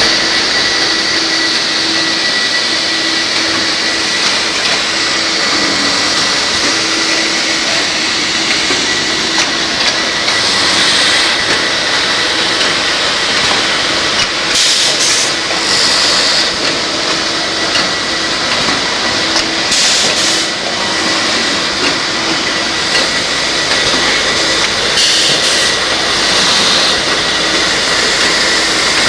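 Automatic drilling and dowelling machine for wooden joists running with a steady mechanical whir, with short bursts of hiss every four to five seconds.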